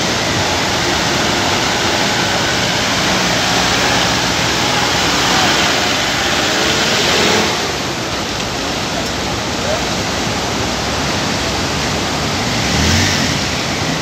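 Swollen mountain river in flood, its muddy water rushing loudly and steadily over boulders, with a vehicle engine running faintly beneath it.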